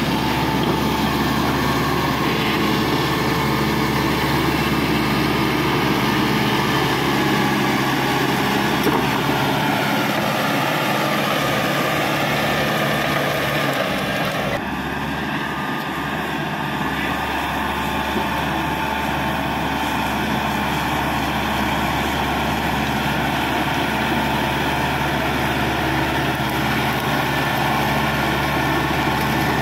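Caterpillar D5K XL bulldozer's diesel engine running steadily, its pitch sagging for a few seconds a little before halfway. About halfway through the sound changes abruptly, then runs on steadily.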